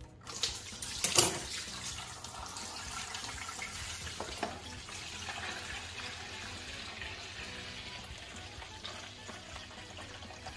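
A sharp snip about a second in as scissors cut the corner of a plastic bag, then a steady stream of water runs out of the bag and splashes into a plastic basin. This is the water that has settled out beneath the coconut milk, being drained off.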